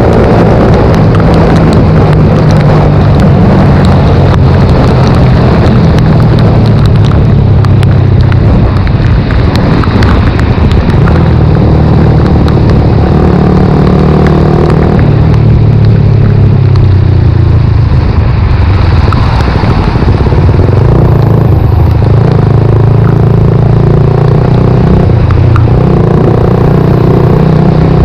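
Suzuki GSX-R125's single-cylinder engine running loud while riding, its pitch rising and falling several times as the revs change.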